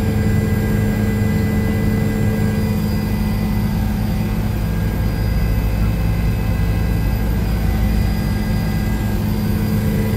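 Helicopter engine and rotor noise heard from inside the cabin: a steady low drone with constant higher whining tones over it.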